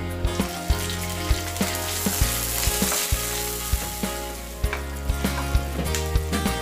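Sliced onions and garlic sizzling in hot oil in a nonstick pan, the sizzle swelling a couple of seconds in, while a wooden spatula stirs them with repeated short knocks against the pan.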